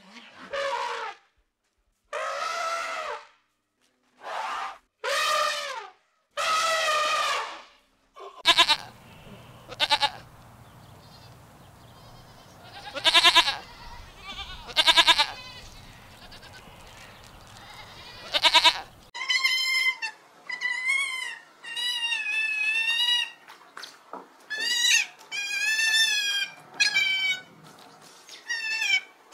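Goats bleating: a series of separate wavering bleats, some lower and some higher-pitched, across several spliced clips.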